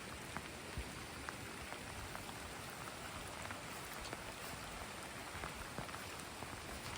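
Steady rain falling, an even hiss with scattered individual drops ticking sharply on surfaces.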